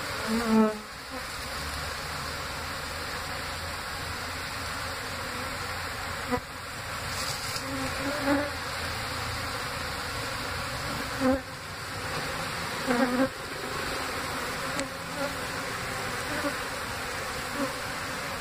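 A large swarm of honeybees buzzing around and over an open hive box as a steady, dense hum. Now and then a louder buzz briefly rises and falls in pitch, several times in all.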